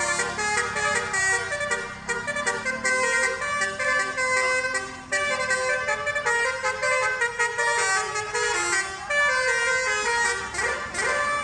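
Telolet horn, a multi-tone musical vehicle horn, playing a tune of quick stepped notes, with a rising glide near the end.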